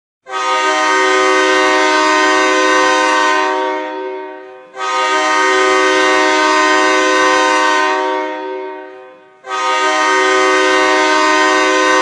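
Hockey arena goal horn, a deep multi-tone air horn, blown in three long blasts of about three seconds each. Each blast tails off with a short echo before the next; the third runs on to the end.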